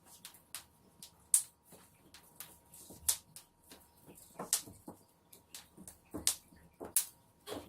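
Irregular thumps and taps of cats jumping and landing on the floor while chasing a wand toy, the loudest about a second and a half in.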